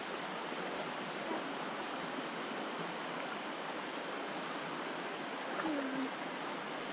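River water running steadily, an even rushing noise with no break.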